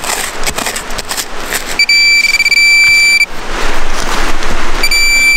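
Handheld pinpointer (Garrett Pro-Pointer) sounding its alert: a high steady beep starting about two seconds in, warbling briefly and then holding, which means a metal target is right at its tip. The beep stops for a second or so and sounds again near the end. Scraping and rustling of soil being dug by hand comes before and between the beeps.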